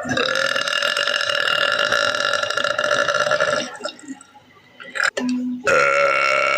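A woman belching: one long, drawn-out belch held at a steady pitch for nearly four seconds, then, after a short pause, a second long belch starting near the end.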